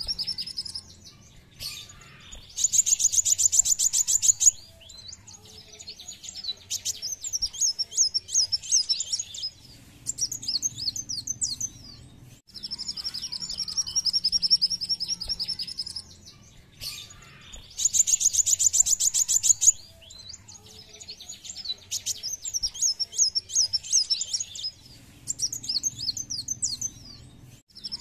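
Male kolibri wulung (a sunbird) singing: a steady high trill, a short pause, then a fast buzzy rattling trill followed by a run of quick, high twittering notes. The whole sequence comes round twice.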